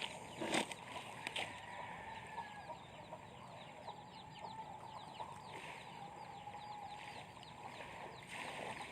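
Faint bird calls: many short, falling chirps throughout, with a louder falling call about half a second in.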